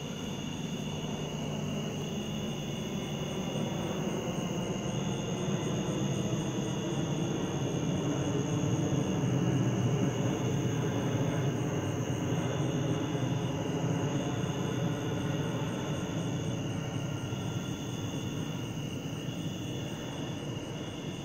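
Airplane flying over: a low rumble that swells to its loudest about halfway through, then slowly fades as it passes.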